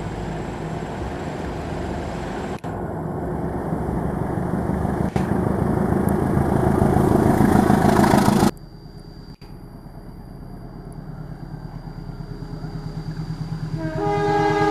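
Diesel-electric locomotives of passing trains running hard, growing louder until a sudden cut about eight and a half seconds in. A quieter approach follows, with a steady high whine and a quickening regular pulsing. A train horn starts sounding near the end.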